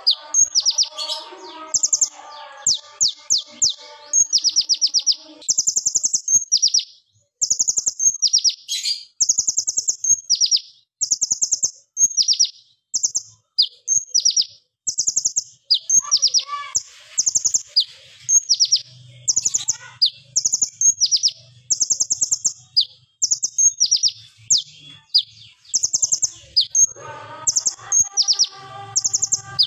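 Male kolibri ninja (purple-throated sunbird) singing a rapid-fire song of high, sharp trilled bursts, one quick rattle after another with short breaks, like machine-gun fire.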